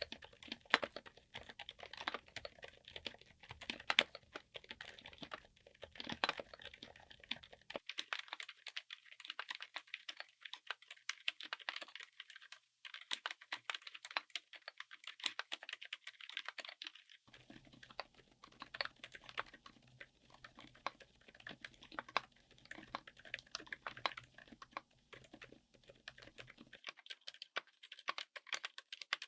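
Typing on a mechanical keyboard fitted with silent switches: a fast, continuous run of keystrokes.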